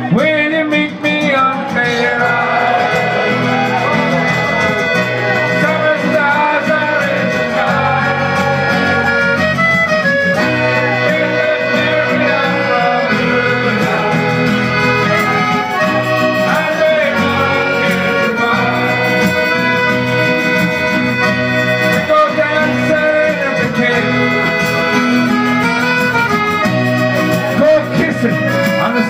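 Live band music led by a piano accordion, with acoustic and electric guitars playing along to a steady beat.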